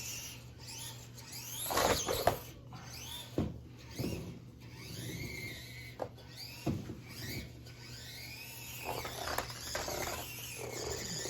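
Axial SCX24 micro RC truck's stock brushed motor and gears whining, rising and falling in pitch with the throttle, with several sharp plastic clacks and knocks as its oversized tires climb over toy cars.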